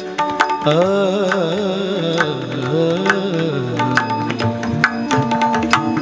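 Warkari bhajan music: a male singer draws out a wavering, ornamented melismatic line over steadily held accompanying notes, with pakhavaj drum strokes throughout. The sung line gives way to the held notes and drumming a little past the halfway point.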